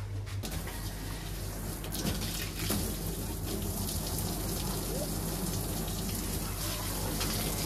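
Water pouring from a hose pipe into a tub and splashing through a plastic basket, starting about half a second in, over a steady low hum.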